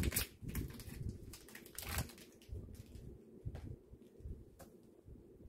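Faint handling noises from opening a small blind box holding an enamel pin: scattered light clicks and rustles of packaging between the fingers.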